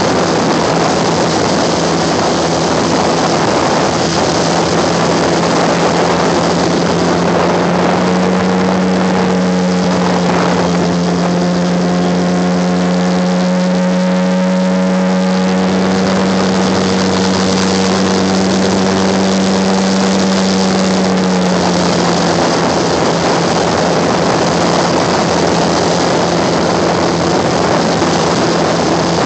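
Airboat's engine and air propeller running steadily at speed with a loud, even hum. The engine note steps up slightly and grows fuller from about eight seconds in, then drops back near twenty-two seconds.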